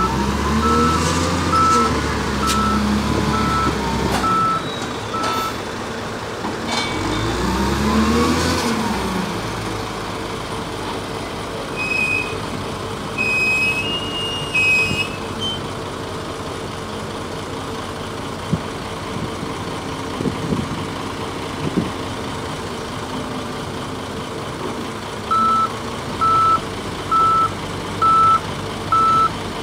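SDLG wheel loader's diesel engine running, revving up and down twice in the first ten seconds, with its reversing alarm beeping steadily for the first five seconds and again near the end.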